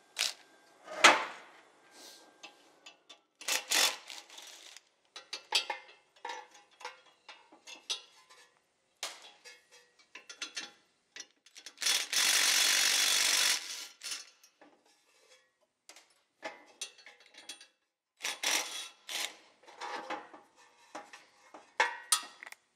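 Metal parts and tools clinking and knocking at a Koenders windmill compressor as the three bolts holding its piston assembly are taken out. About halfway through, a cordless driver runs steadily for about a second and a half.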